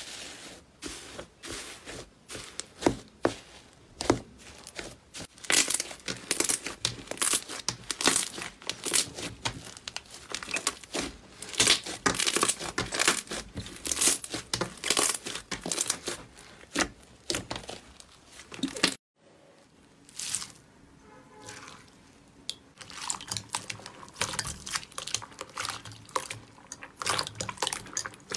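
Slime being squeezed and stretched by hand, a dense run of crackles and pops. The sound cuts out briefly about nineteen seconds in, then quieter crackling resumes.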